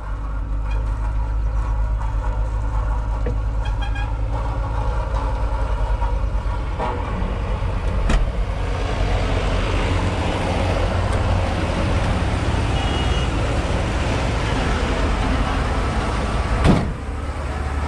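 Tipper truck's diesel engine idling steadily, heard from the cab. A hiss comes in about halfway through, and near the end a single sharp knock sounds as the cab door is handled.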